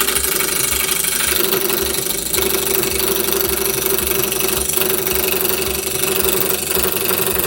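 Small bench wood lathe spinning a wooden platter blank while a gouge cuts across it: a steady rough scraping over a constant hum from the lathe, starting abruptly.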